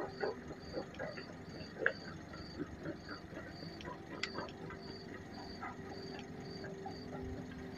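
A night insect chirping steadily, a short high chirp about twice a second. Faint scattered clicks and scuffs come in the first few seconds, and faint low steady tones join about halfway through.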